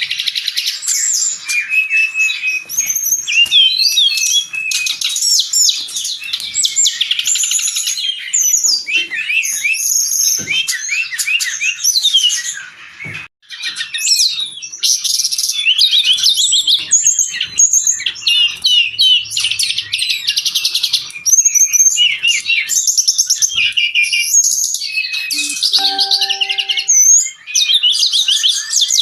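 Brown-chested jungle flycatcher singing in full, vigorous song: a fast, unbroken run of high, chattering and warbling notes, with one short pause about 13 seconds in.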